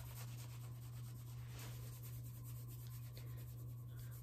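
Faint rubbing and scratching of a hand on a T-shirt sleeve, over a steady low hum.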